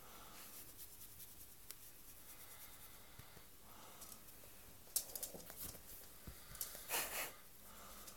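Faint rustling and rubbing close to the microphone, with a few louder scrapes about five seconds in and a short louder hiss about seven seconds in.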